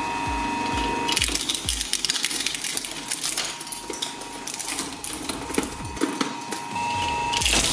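Twin-shaft shredder running with a steady motor whine, then crunching up a die-cast metal toy car from about a second in. Dense cracking, snapping and clinking of metal and plastic lasts several seconds. Near the end the steady whine runs on its own again, the blades empty.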